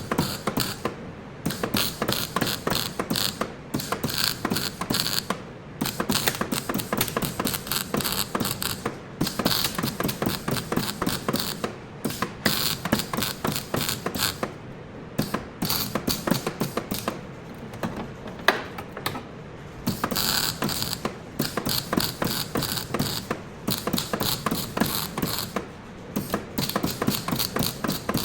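Rapid mechanical clicking in runs of a few seconds, broken by short pauses, like a hand tool being worked in repeated strokes.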